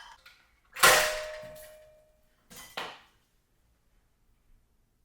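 A sharp metallic clang about a second in, ringing on with a steady tone as it dies away, then two quicker knocks close together near the three-second mark: metal cookware being handled.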